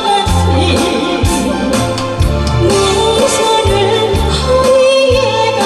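A solo singer sings a Korean song live into a microphone over a recorded backing track. A bass line pulses in repeated low notes beneath the melody.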